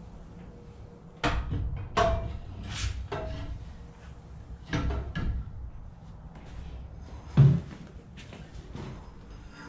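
A series of separate clunks and knocks from hands-on work refitting a Predator 212cc engine to a mini bike frame, with the loudest a sharp thump near the end.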